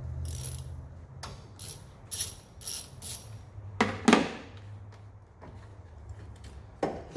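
Light metallic clicks and clinks of hand tools in a truck's engine bay, then two louder knocks about four seconds in, over a low steady hum.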